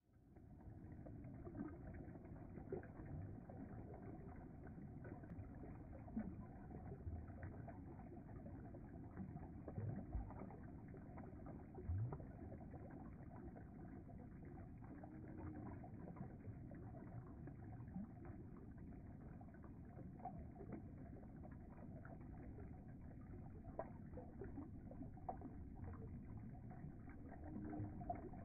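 Steady low rush of river water around a hand holding a brown trout in the shallows, with a few short splashes or knocks here and there.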